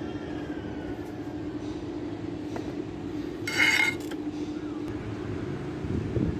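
A steady low mechanical hum, with a short, high, ringing clink about three and a half seconds in.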